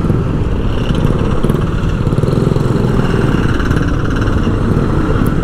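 Small motorcycle engine running steadily up close, with rapid low firing pulses.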